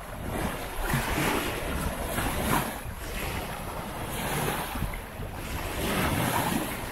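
Waves breaking and washing on a beach, the surf swelling every second or two, with wind buffeting the microphone.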